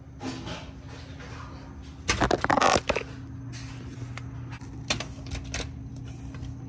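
Scattered clicks and knocks of metal tools being handled during work on a car, with a cluster of clatter about two seconds in, over a steady low hum.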